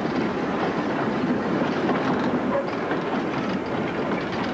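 Railway vehicles running on the track: a steady rattling clatter of wheels and rails.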